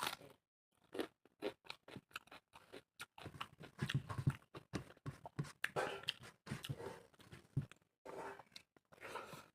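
A person chewing and crunching pork close to the microphone: many quick, irregular crunches and clicks of eating.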